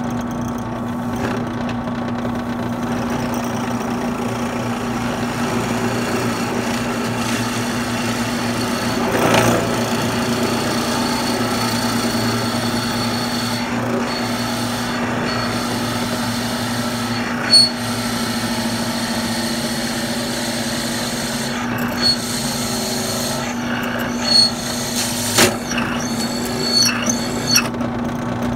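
Drill press motor running steadily while a twist bit bores the old glued knot out of a shaving brush handle. A few brief, louder catches of the bit come in the second half.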